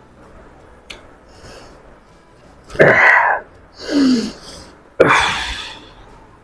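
A man coughing and spluttering in three harsh bursts about a second apart, the second trailing into a falling groan: a choking reaction to neat vodka swigged straight from the bottle.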